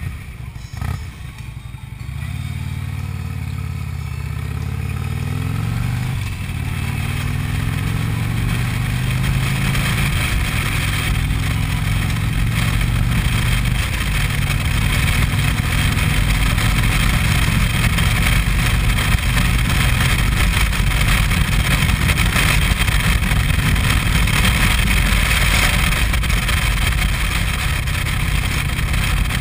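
Harley-Davidson Street Glide Special's V-twin engine accelerating away from a turn, rising in pitch and dropping back twice in the first six seconds as it shifts up, then running at a steady cruise. Wind rush on the helmet-mounted microphone grows louder as speed builds.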